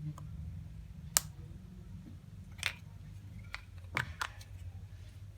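A handful of sharp clicks and taps from handling, the sharpest a little over a second in and a close pair near the end, over a low steady hum.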